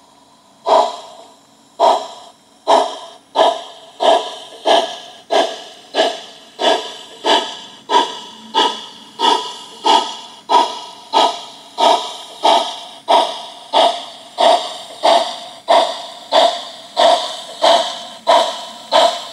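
Model steam locomotive's sound unit chuffing, each chuff sharp at the start and fading. The chuffs start about a second in and quicken from about one a second to nearly two a second as the locomotive picks up speed.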